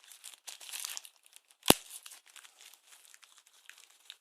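Packaging from a phone box rustling and crinkling as an accessory is taken out, with one sharp knock or click about a second and a half in.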